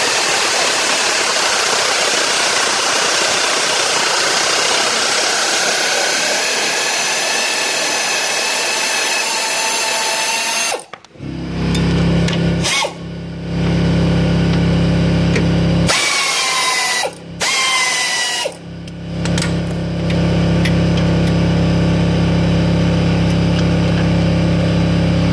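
Power drill driving a socket to spin out the radiator mounting bolts. For about the first eleven seconds it runs with a scraping, wavering whine. After that it runs as a steady hum in several short spells with brief stops between them.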